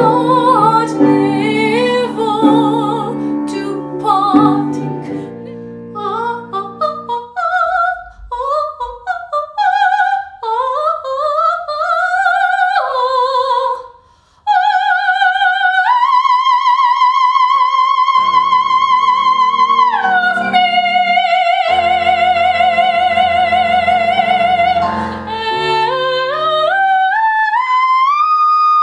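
Female operatic soprano singing classical repertoire with piano accompaniment: quick runs of notes in the first half, then, after an abrupt break, long high notes held with vibrato and a rising scale up to a high held note near the end.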